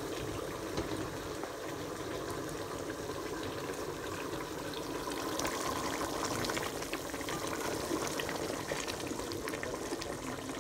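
Apricots cooking in sugar syrup at a rolling boil in a pan on the stove: steady bubbling with many small pops and crackles.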